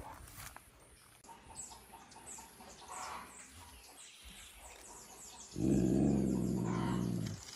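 Faint bird chirps, then a low, steady growl from a big cat lasting about two seconds that starts and stops abruptly near the end.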